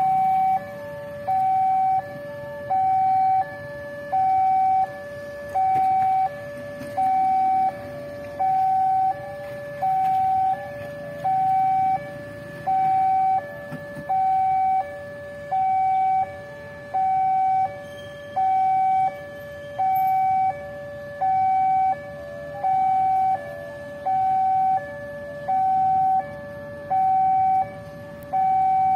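Railway level-crossing warning alarm sounding a steady two-tone signal, a higher tone alternating with a lower one about every three quarters of a second, warning that a train is approaching. Road traffic hums underneath.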